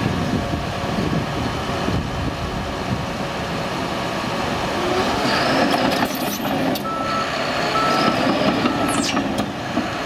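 John Deere 700K crawler dozer's diesel engine running as the machine drives forward and then backs up. Its backup alarm gives three short beeps about a second apart, starting about seven seconds in.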